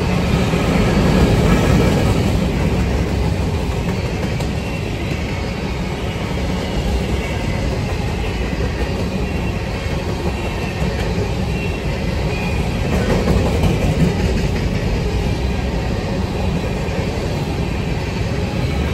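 Covered hopper cars of a Norfolk Southern freight train rolling past: a steady rumble of steel wheels on the rails, swelling slightly a couple of times.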